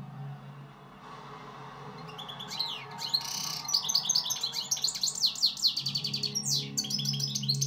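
European goldfinch singing: a fast, twittering run of high chirps, trills and buzzy notes that starts about two and a half seconds in and keeps going.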